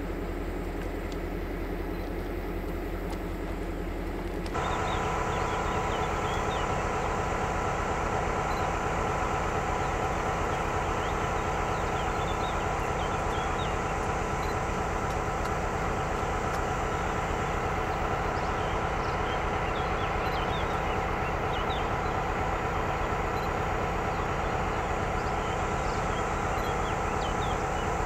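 HŽ series 2062 diesel locomotive engine running steadily. About four and a half seconds in, the sound jumps louder and fuller as the locomotive approaches hauling its freight train, its engine drone joined by steady higher tones and scattered light ticks.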